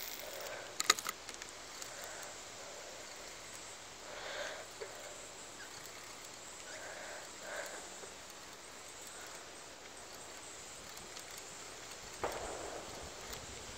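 Quiet outdoor ambience at a pond: a steady soft hiss with a couple of sharp clicks about a second in and a few faint brushing sounds later on.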